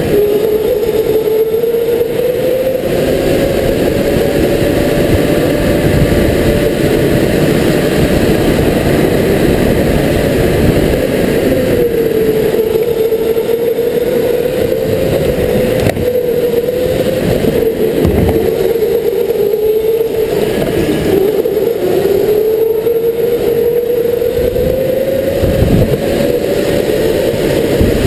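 Electric go-kart motor whining at the wheel of a kart at full race pace. Its pitch climbs as the kart speeds up and drops back several times as it slows for corners, over a steady rumble from the kart and the track.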